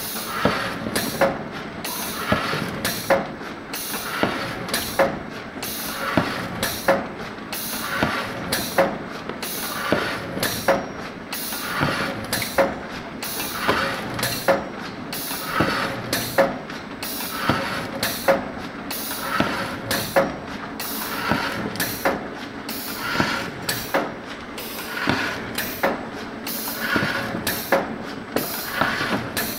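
Automatic cardboard core cutter running through its cutting cycle about once a second, each cycle a sharp mechanical click with a burst of compressed-air hissing.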